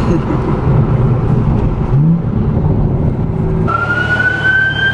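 BMW 340i's turbocharged 3.0-litre straight-six pulling hard in first gear, the tyres spinning, its pitch rising about two seconds in. Near the end a police siren starts up with a slowly rising wail.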